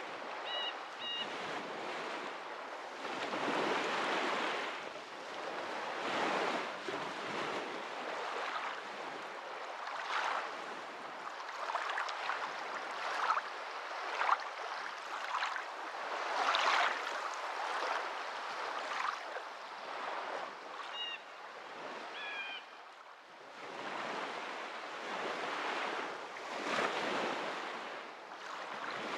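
Sea waves washing in and drawing back, swelling and ebbing every few seconds. A few short, high chirps come through near the start and again about two-thirds of the way in.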